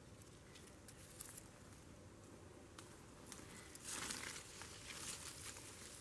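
Faint rustling and crinkling of leaves, with a louder rustle about four seconds in.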